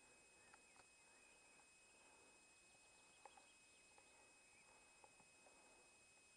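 Near silence: faint outdoor background hiss with a few soft scattered ticks.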